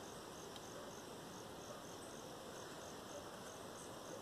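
An insect, likely a cricket, chirping steadily in short, evenly spaced high chirps, about three a second, over a faint outdoor hiss.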